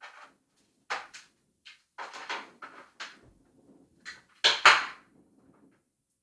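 Handling noise as a flat HDMI cable is plugged into a clear plastic Raspberry Pi case: an irregular string of plastic clicks and knocks against a glass tabletop. The loudest are two knocks close together about four and a half seconds in.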